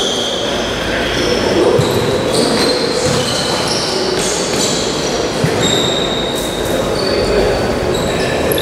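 Futsal play in an echoing sports hall: sneakers squeaking on the court, the ball kicked sharply twice, and players calling out.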